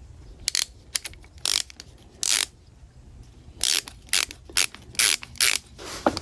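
Hand ratchet clicking in a series of short back-strokes, about ten bursts, as two small screws are driven in.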